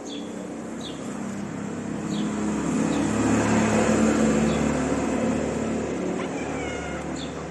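A motor vehicle passing along the street, its engine and tyre noise growing louder to a peak about halfway through and then fading away. A few short, high chirps sound over it in the first few seconds.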